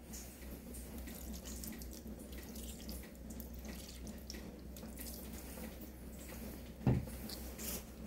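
Soy sauce pouring steadily from a plastic bottle onto fried pork hocks and vegetables in an aluminium pot. A single thump comes near the end.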